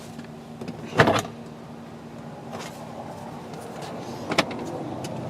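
A few sharp clicks and knocks from hand work on a pickup's inside door panel, just after its two door-handle screws are taken out. The loudest knock comes about a second in, and the others are spaced a couple of seconds apart over a steady low hum.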